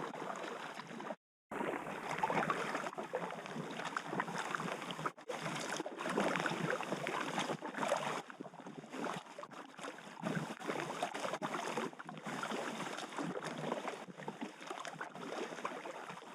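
Rushing, splashing river water around a packraft running downstream, an uneven rough noise with constant small splashes. The sound cuts out entirely for a moment about a second in and again near the end.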